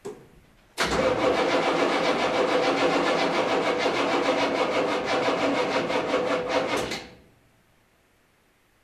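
Starter motor cranking the 1984 Chevrolet CUCV M1028's 6.2-litre diesel V8 in an even pulsing rhythm for about six seconds. The engine does not fire, and the cranking stops abruptly. A brief click comes just before the cranking begins.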